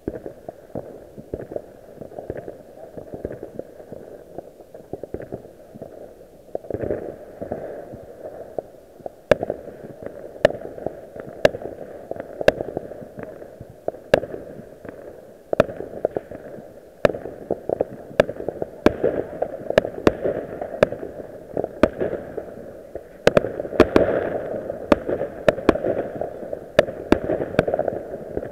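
New Year fireworks going off: a steady crackle and rumble of many fireworks, with sharp bangs coming thick and fast from about nine seconds in.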